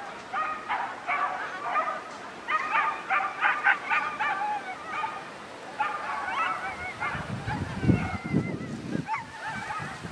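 Whippets giving high-pitched yelps and barks in quick clusters, with wavering whines about six seconds in. A low rumble comes up near eight seconds.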